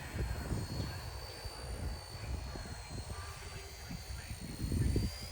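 RC Era C032 UH-1 Huey scale RC helicopter in flight: a steady high-pitched motor and rotor whine that wavers slightly in pitch, over gusty wind rumble on the microphone that grows louder near the end.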